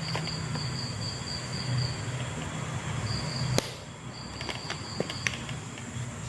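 An insect singing a high, rapidly pulsed trill in runs of one to two seconds with short gaps between them. A sharp click comes about three and a half seconds in, followed by a few lighter ticks.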